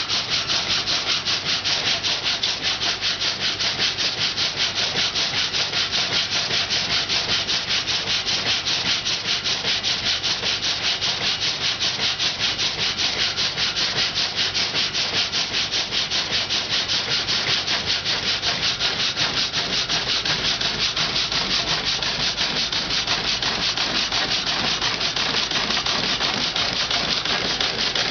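Water-powered sawmill's saw cutting through a log: a steady rasping that repeats stroke after stroke at an even pace.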